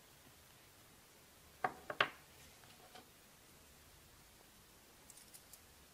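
Cuticle nippers clicking as they are worked on the wallet and put down on a cutting mat: a few sharp clicks about one and a half to two seconds in, then lighter ticks. A few faint high ticks near the end as the wallet's parts are handled.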